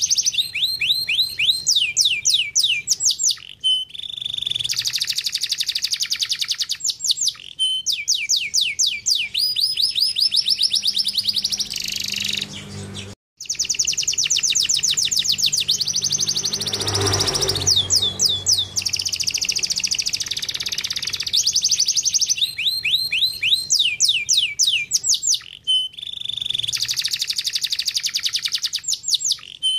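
Domestic canary singing: long, fast trills of rapidly repeated falling notes alternating with buzzy rolls, broken by one very brief gap about midway.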